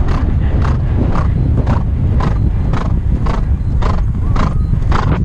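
A horse galloping across grass: a regular beat of hoofbeats and breathing about twice a second, over a steady wind rumble on the microphone.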